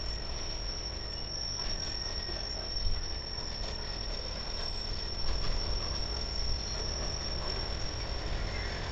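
Freight train of loaded rail flatcars rolling around a curve: a low rumble with a steady high-pitched squeal that fades near the end, and a few short knocks.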